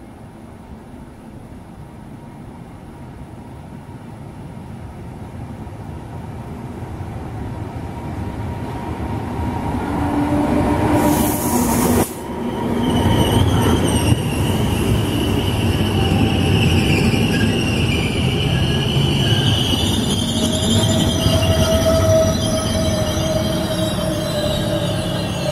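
Electric-hauled regional passenger train coming into the station along the platform: the rumble of wheels on rail swells steadily as it approaches, with a brief loud hiss as the locomotive passes about halfway through. Steady high-pitched wheel and brake squeal follows as the coaches slow down alongside the platform.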